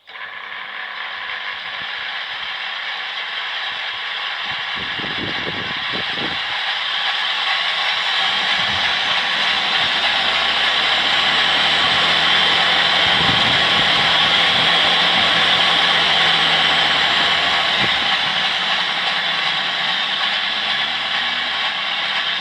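Electric machine tool in a home workshop running: a steady, high, many-toned whine from its motor and drive that grows louder over the first ten seconds or so. A few knocks come around five and six seconds in, and a low hum joins in about ten seconds in.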